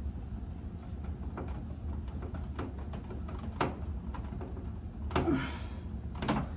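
Scattered light clicks and taps of hand work on wiring in an electrical panel, with a short rustling scrape about five seconds in, over a steady low hum.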